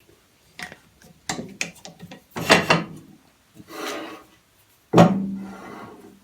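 Wooden pieces being handled, with short scraping and rubbing strokes of wood on wood. About five seconds in comes a sharp wooden knock that leaves a low ringing tone fading away.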